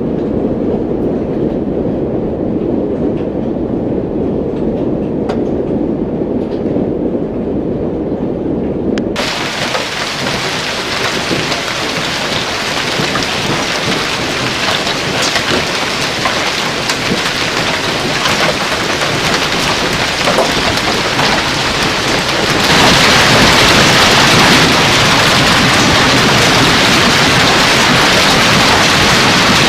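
Hailstorm with heavy rain: a low, muffled rumble for the first nine seconds, then abruptly a loud, steady hiss and patter of hail and rain, which grows louder and brighter about 23 seconds in.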